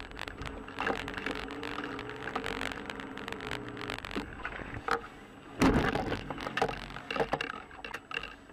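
Car running with a steady hum and scattered clicks and knocks, then a loud crash impact a little past halfway through, followed by several more sharp knocks.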